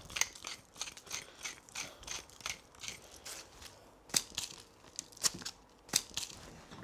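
Hand-twisted salt and pepper mills grinding, a quick run of crunching clicks about three or four a second. About four seconds in the grinding gives way to a few separate sharper clicks.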